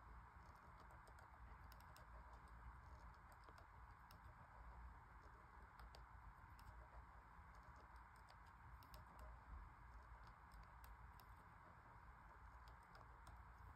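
Faint, irregular light clicks and ticks from a kinetic drawing machine as its pen and jointed arms move over the paper, over a low steady hum.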